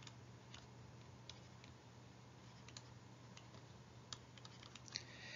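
Faint, scattered light clicks and taps of a stylus writing on a tablet or screen, over a faint steady low hum; near silence otherwise.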